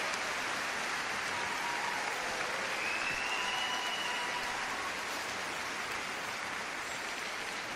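Arena crowd applauding steadily after a figure skating program, with a few faint whistles or calls over the clapping.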